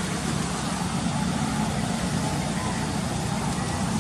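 Steady low rumble of road traffic running without a break.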